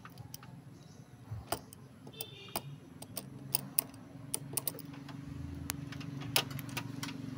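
Irregular sharp clicks and taps from a replacement fuse being handled and pushed into a car's fuse box. Under them runs a steady low drone that grows louder in the second half.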